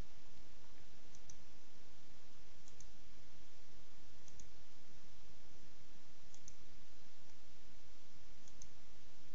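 Computer mouse clicking: about five faint double ticks of press and release, one to two seconds apart, over a steady background hiss.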